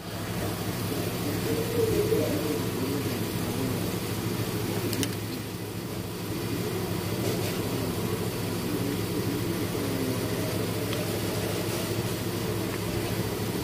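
An engine running steadily at an even speed, a continuous hum with no revving.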